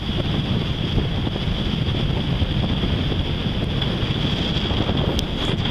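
Wind buffeting the microphone aboard a moving sailboat, over the rush of choppy water, with a thin steady high whine throughout and a few faint clicks near the end.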